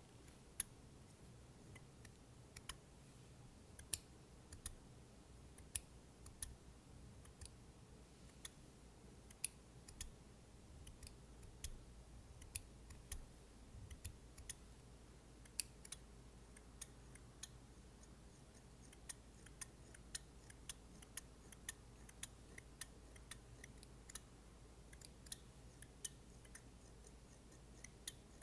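A pair of scissors snipped open and shut close to the microphone, making a string of sharp, crisp clicks that come irregularly and grow quicker in the second half.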